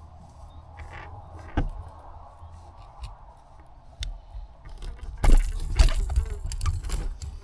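Clicks, knocks and scraping from a just-landed walleye and fishing gear being handled in a kayak, with a single sharp click about a second and a half in and another about four seconds in, and the loudest stretch a cluster of knocks and scrapes from about five to seven seconds in.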